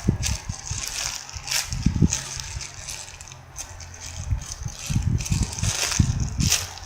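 Rustling and irregular knocks of objects being handled close to the microphone, as when a squishy toy is taken out and handled.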